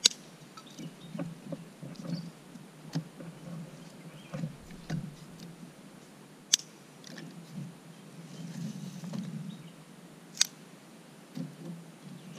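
Wooden sticks being handled and laid in a sand pit: scattered soft knocks and rustling in the sand, with a few sharp clicks of stick against stick, the loudest about six and a half and ten seconds in.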